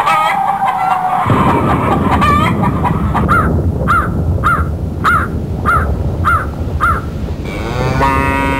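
A run of sound effects: a falling tone dies out about a second in, giving way to a loud rough rumble over which a short call repeats about every 0.6 s; near the end a wobbling boing begins.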